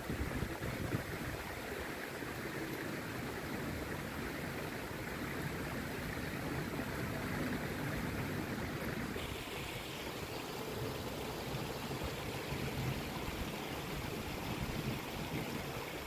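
Steady rain falling on a pond, mixed with a constant rush of running water from the garden's falls. The hiss turns a little brighter about nine seconds in.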